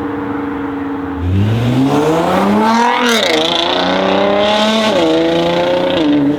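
Tuned Nissan GT-R R35's twin-turbo V6 accelerating hard. It runs steadily at first, then about a second in the engine note climbs steeply and gets louder, drops sharply at an upshift about three seconds in, and climbs again before dropping once more near the end.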